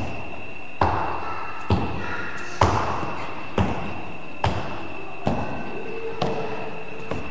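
Evenly spaced thumps, about one every 0.9 seconds, each a short sharp knock, over a faint steady high whine.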